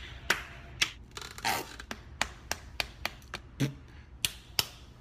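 Sharp hand slaps and claps, with some rubbing, made close up on a studio microphone as mock adult-film sound effects. About a dozen irregular smacks, two or three a second, with a longer rubbing swish about a second and a half in.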